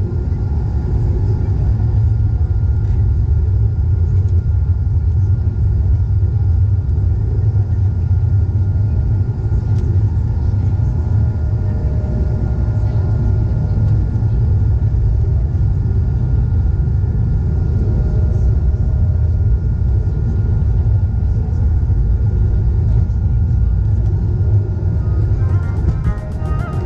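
Cabin noise inside an Airbus A220-300 seated over the wing: the Pratt & Whitney PW1500G geared turbofans and airflow make a steady low rumble with a thin steady whine over it. Background music comes in near the end.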